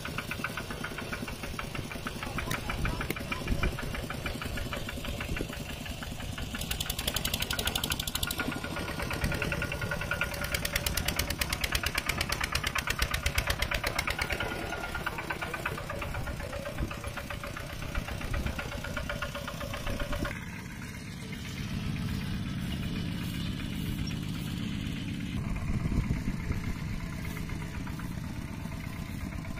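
Single-cylinder diesel engine of a two-wheel walking tractor running with a rapid, steady knock as it pulls a loaded rice trailer. About twenty seconds in, the sound switches abruptly to a lower, more distant engine drone.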